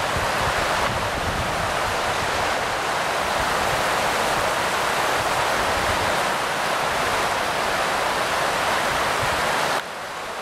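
The Verdon river rushing over a shallow, rocky rapid: a steady rush of water. It drops suddenly to a fainter rush just before the end.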